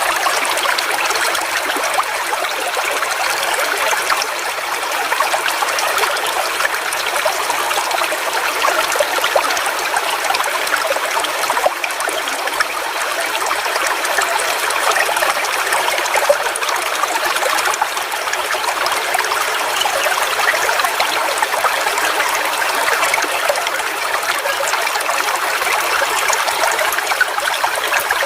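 Small forest waterfall splashing and flowing steadily: an even rush of water with fine splashy texture and little low rumble.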